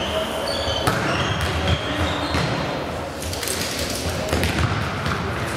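Fistball rally in a sports hall: the ball thuds as players strike it with fist and forearm and as it bounces on the hall floor, several sharp knocks about a second apart, with short high squeaks of shoes on the floor.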